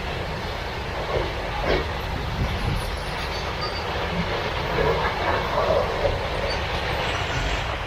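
Container freight train's wagons rolling past on the track: a steady rumble of wheels on rail.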